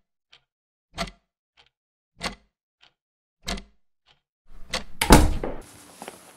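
Wall clock ticking in a slow tick-tock, with a louder tick and a fainter tock alternating about every 0.6 s. About five seconds in, a door opens with a loud clunk.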